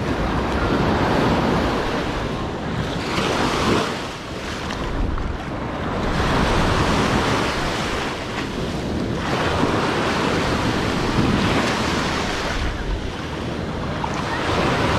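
Ocean surf washing in, swelling and easing every few seconds, with wind buffeting the microphone.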